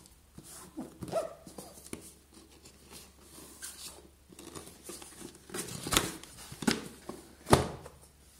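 Cardboard tablet packaging being handled: soft rustling and scraping as the outer sleeve slides off the box, then three sharp knocks or clicks in the last few seconds.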